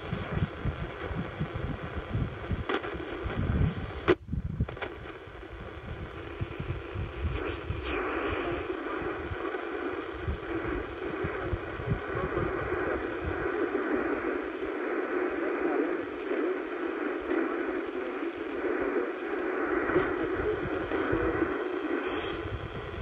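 Yaesu FRG-100 shortwave receiver being tuned across the 31-metre band in AM mode: static and shortwave broadcast signals coming and going from its speaker, with a brief dropout about four seconds in. From about eight seconds in a steadier signal settles in under the static.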